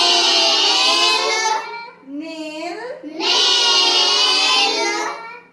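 Children's voices chanting in a sing-song, probably repeating the spelling drill: two phrases, each a short rising syllable followed by a long held one.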